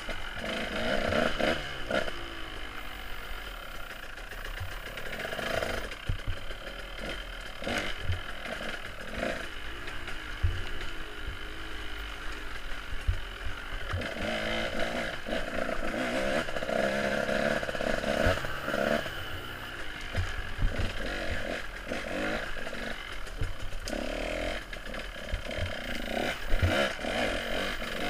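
Off-road motorcycle engine revving up and down as the bike is ridden over rough trail, with frequent knocks and rattles from the bike bouncing over rocks and roots.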